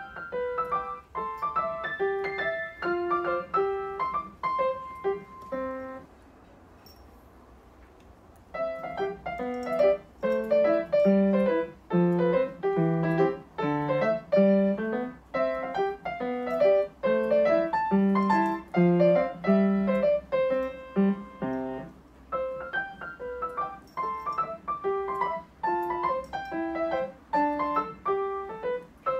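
Piano music, a melody of single struck notes. It breaks off for about two seconds around six seconds in, then resumes with a lower bass line under the melody until about 22 seconds in.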